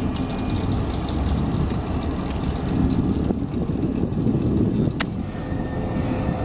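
Steady low rumble of wind buffeting the microphone, mixed with the engines of tugboats holding a tanker against its berth. A single sharp click about five seconds in.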